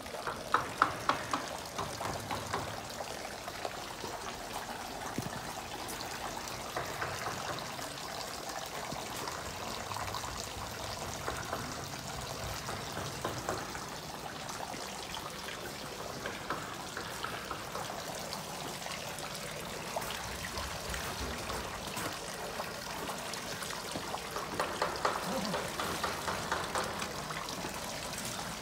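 Water trickling and splashing steadily from a dragon-head spout into a stone shrine purification basin, with footsteps crunching on gravel at the start and again near the end.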